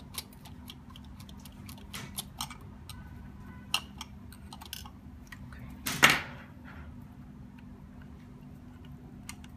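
Small clicks and light knocks of hands handling the plastic servos and wire leads of an RC excavator, with one louder knock about six seconds in.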